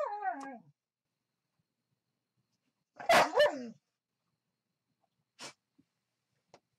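Pet dog barking: a quick double bark about three seconds in.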